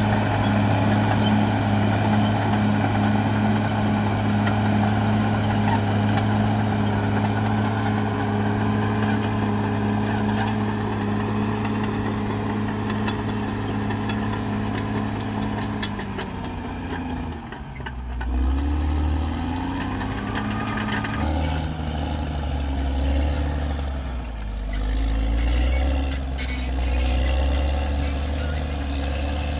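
CAT D6R XL bulldozer's diesel engine running at steady revs. About 17 seconds in it drops lower and then runs at uneven, lower revs, with a brief rising whine.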